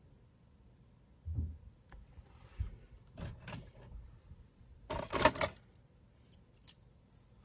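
Metal costume jewelry clinking and rustling as a hand rummages in a wooden box of brooches and picks one out. A soft bump comes about a second in, and the loudest clatter comes about five seconds in.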